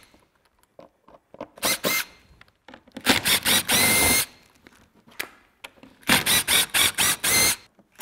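A power driver backing screws out of boat panels. There is a short run about one and a half seconds in and a longer run with a steady whine around three seconds in, then a string of quick short bursts near the end.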